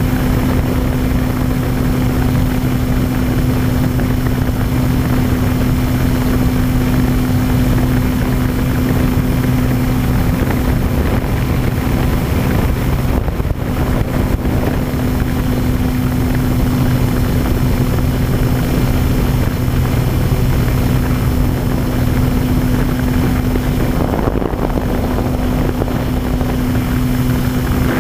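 E-flite Apprentice RC plane's electric motor and propeller droning steadily in flight, with wind rushing over the microphone. The hum briefly drops out about 13 seconds in.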